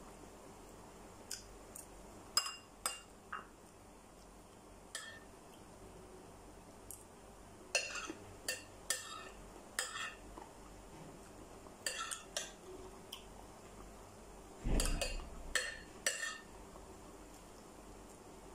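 Metal spoon clinking against a ceramic plate and a glass bowl while eating: scattered single clinks, several in quick succession around the middle, and one heavier knock about three-quarters of the way through.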